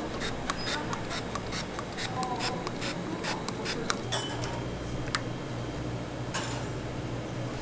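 A quick series of short scrapes and clicks from a metal tool working against chiffon cakes for the first few seconds. After that comes a steadier low kitchen hum with a few isolated clinks.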